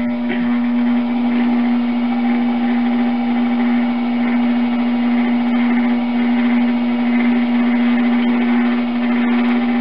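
Electric potter's wheel running with a steady hum while wet clay is worked by hand on the spinning wheel head, the clay being opened down to form the base of a bundt pan.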